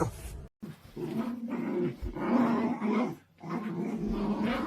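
A pet growling in long, low, rough rumbles: about three stretches of a second or so each, with short breaks between them.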